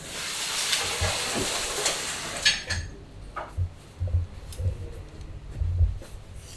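A steady hiss for about two and a half seconds, ending in a short rattle, followed by several dull knocks.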